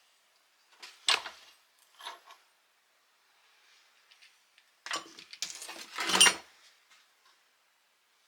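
Small metal tools and parts clinking and rattling as they are handled: a sharp clink about a second in, a lighter one near two seconds, then a longer, louder rattle from about five seconds in.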